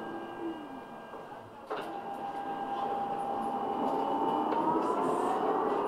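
R 2.2 tram's electric traction drive: a sharp click about two seconds in, then a whine that rises steadily in pitch and grows louder as the tram accelerates.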